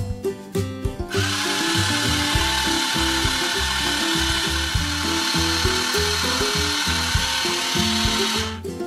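Blender whirring steadily, starting about a second in and stopping shortly before the end, with background music underneath.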